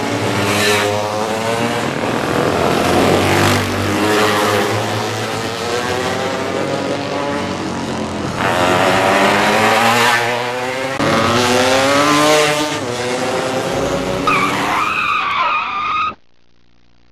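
Classic racing motorcycles accelerating and passing one after another through a street-circuit corner, their engines revving up and down in repeated rising and falling sweeps. The sound cuts off abruptly near the end.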